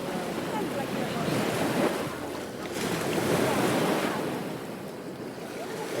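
Ocean surf on a beach, waves breaking and washing in. The rushing noise swells and ebbs, growing louder twice and rising again near the end.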